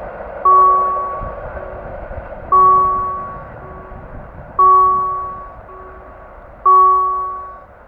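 Railroad crossing warning bell sounding loudly, one ringing tone about every two seconds that fades over about a second, each followed by a fainter echo. A steady rushing noise runs underneath and drops away near the end.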